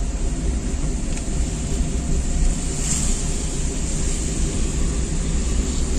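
Steady engine and road rumble heard inside a moving car's cabin.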